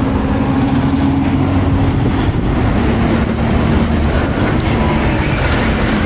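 A motor running steadily: a continuous low rumble with a hum that shifts slightly in pitch.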